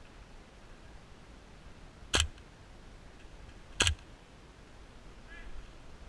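Airsoft rifle fired in single shots: two sharp, short shots about a second and a half apart.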